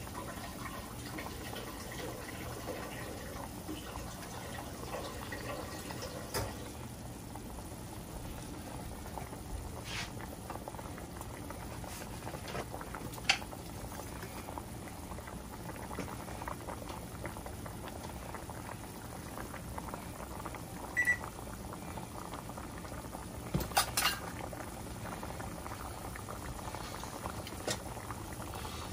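A saucepan of barbecue sauce and rib pan juices at a rolling boil on an electric flat-top stove, bubbling steadily as it is brought to the boil to reduce down. A few brief sharp clicks stand out now and then, the loudest about 13 seconds in and just before 24 seconds.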